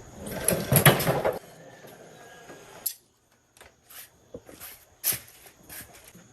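Handling noises: about a second of scraping and rustling, then after a sudden cut a few separate knocks and clinks.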